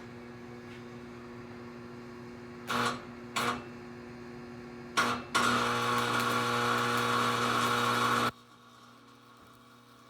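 Stick (arc) welding: a welding machine hums steadily while the electrode is struck in three short crackles, then a continuous arc crackle holds for about three seconds and stops suddenly.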